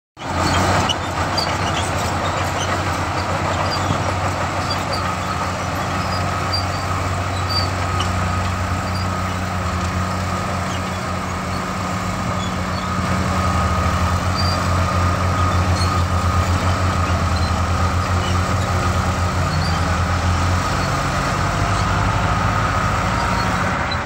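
Komatsu D65P crawler bulldozer's diesel engine running steadily as the dozer works the dirt, with a steady high whine over the low engine note.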